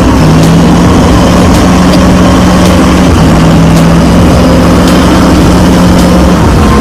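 Heavy diesel engine of a large machine running loud and steady, its pitch stepping down and back up a few times.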